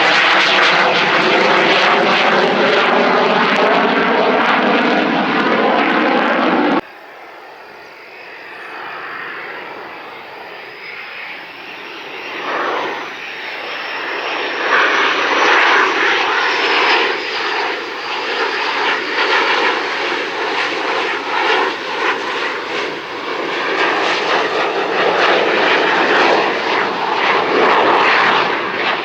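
Jet noise from Boeing EA-18G Growlers' twin General Electric F414 turbofan engines: a loud, steady rush with slowly shifting bands, which cuts off abruptly about 7 seconds in. The sound returns much quieter and swells back to full loudness over the next several seconds, with a high whine over it.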